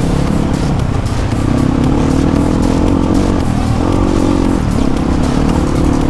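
Motorcycle engine running while riding over a rough off-road track, its pitch dipping and rising a little, with short clattering knocks.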